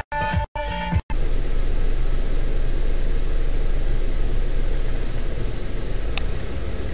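A second of music chopped by hard cuts, then a car's steady engine and road noise heard from inside the cabin through a dashcam microphone, with one faint click about six seconds in.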